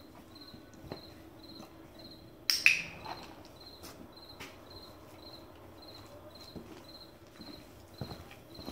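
A cricket chirping steadily, short high chirps about twice a second. A loud, sharp clatter cuts in about two and a half seconds in, and there are soft footsteps on the concrete aisle near the end.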